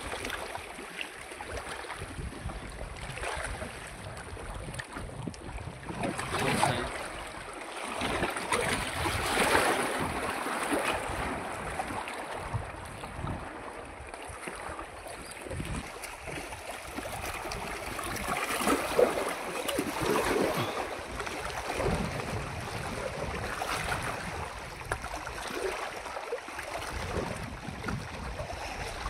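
Wind blowing across the microphone with small waves lapping against rocks, rising and falling in uneven gusts.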